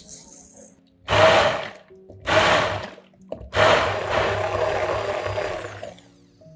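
Hand-held immersion blender blending basil leaves, oil and vinegar into a sauce in a tall plastic beaker. It is pulsed twice briefly, then run for about two and a half seconds.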